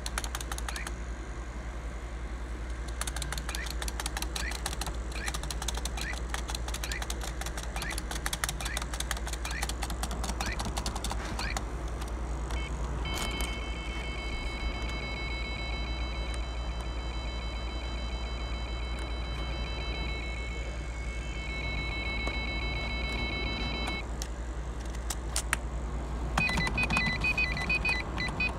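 A computer making electronic chirps and beeps over a steady low hum. For about the first twelve seconds there are rapid clicks with short rising chirps, then a steady high whine of several tones for about ten seconds, and near the end rapid repeated beeps.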